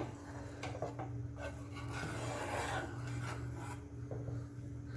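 A spoon scraping and stirring a milk, egg and wheat-flour ice-cream custard in a pan on low heat as it comes up to the boil. A low steady hum runs underneath.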